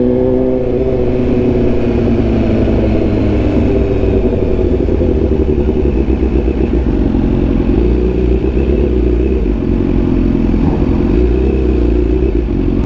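Motorcycle engine running steadily. Its pitch eases down slightly over the first few seconds, then holds, over a heavy low rumble.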